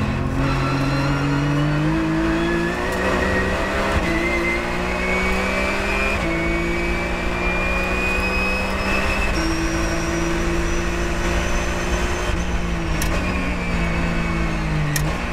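Porsche 997.1 GT3 Cup race car's flat-six engine heard from inside the cockpit, accelerating hard with several gear changes. A high whine rises with speed, and the engine note falls off gradually near the end.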